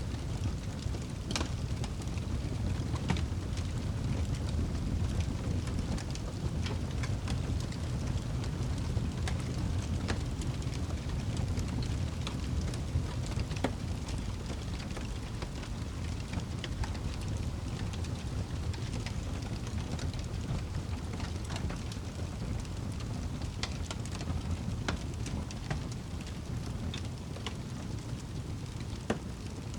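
Wood fire burning in a fireplace: a steady low rumble of flames with frequent scattered crackles and pops of the logs, one sharper pop near the end.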